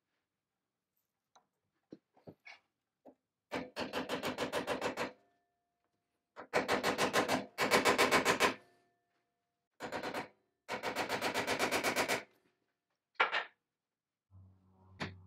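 Bursts of rapid, even clicking, about ten clicks a second, as the swing saw's arm is swivelled around its cast-iron column past the brass angle scale. The loudest run comes about seven to eight seconds in.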